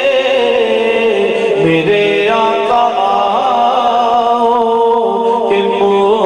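Unaccompanied male naat singing through a microphone and PA: long held, slowly wavering notes with no clear words.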